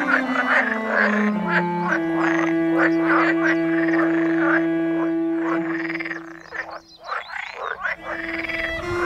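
Frogs croaking in a dense chorus over background music with long held low notes. The sound thins briefly about seven seconds in.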